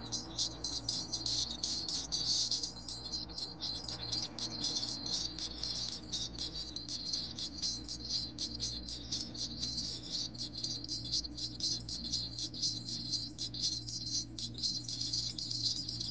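Insects chirring: a dense, high, rapid trill that keeps on without a break, over a low steady hum.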